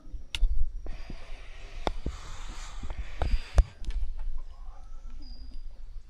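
Stream water heard through a microphone held under water: a muffled low rumble with several dull knocks and a rushing hiss, which eases off about four seconds in.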